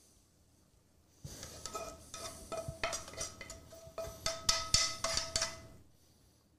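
Metal tongs clinking and scraping against a skillet as pasta is slid out into a ceramic bowl: a run of clinks and knocks with a faint ring under them, starting about a second in and stopping near the end.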